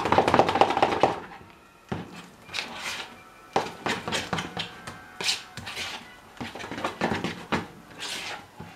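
Fork stirring and scraping egg-yolk filling in a plastic mixing bowl: fast, busy stirring for about the first second, then separate scrapes against the bowl every second or so.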